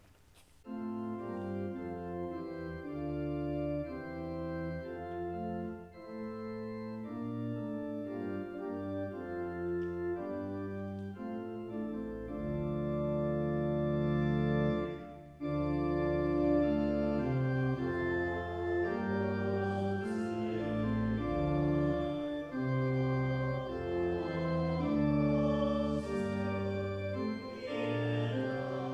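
Church organ playing slow, sustained chords over a deep bass line, starting about half a second in.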